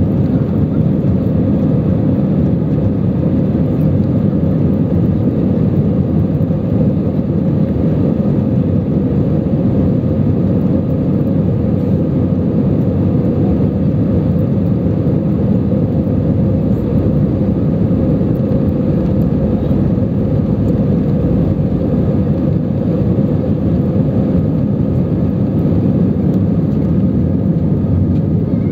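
Airbus A319 jet engines at takeoff thrust heard from inside the passenger cabin during the takeoff roll: a steady, loud, low noise with the rumble of the wheels on the runway.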